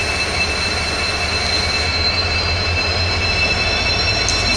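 WDP4D diesel-electric locomotive, with an EMD 16-cylinder two-stroke engine, drawing a passenger train slowly into a station. The engine runs with a low rumble and a steady high whine.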